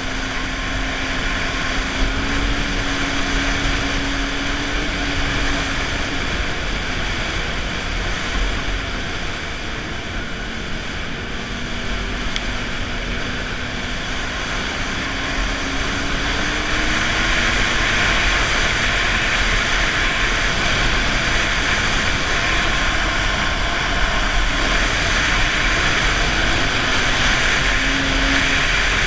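Snowmobile running along a snow trail, heard from on board: a steady, loud engine and running noise whose engine note drifts up and down in pitch, growing louder a little past halfway through.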